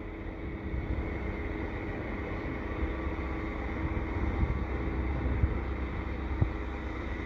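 Heavy diesel snow-removal machinery, a snowblower and a dump truck, running steadily down the street: a low rumble with a constant hum.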